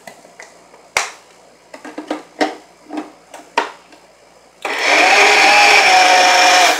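Plastic clicks and knocks as a small grinder jar is fitted and locked onto a Kenwood blender base. A little past halfway the motor starts and runs steadily at full speed for about two seconds, grinding a wet coconut chutney, then stops.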